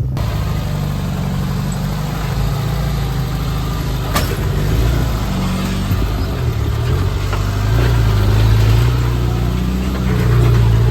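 Off-road vehicle engine running at low speed, its revs rising and falling as it works over rough ground and louder near the end. A single sharp click about four seconds in.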